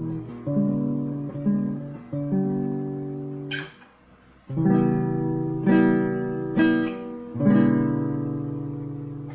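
Acoustic guitar strummed, each chord ringing out before the next. The playing stops briefly just under four seconds in, then the strumming starts again.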